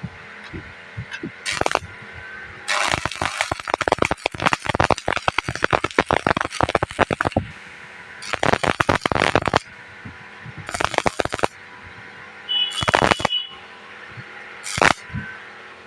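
Stick (arc) welding arc crackling in bursts: one long run of about five seconds, then several shorter bursts of a second or so, stopping and starting.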